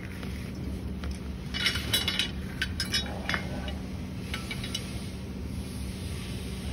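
Metal tube frame parts of a swing chair clinking and knocking against each other as they are handled: a cluster of sharp metallic clinks with a short ring about one and a half to three and a half seconds in, and a few fainter ones near four and a half seconds.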